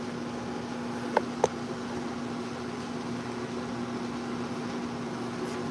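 Steady mechanical hum of a kitchen appliance with one constant low tone; two light clicks close together just over a second in.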